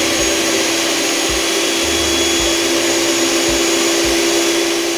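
Electric hand mixer running steadily at speed, its whisk beaters whipping milk and cream into froth in a tall jar, with a steady hum and whine from the motor and a few soft low knocks.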